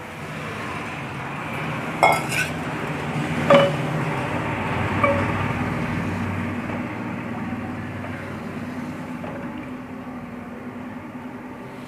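Wooden spoon stirring milk with soaked rice and sago in an aluminium pot, over a steady background noise. The spoon knocks against the pot three times, each knock ringing briefly.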